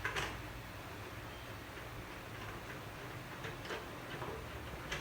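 A handful of light clicks and taps from a document drilling machine being handled and set up, spaced irregularly over a steady low hum.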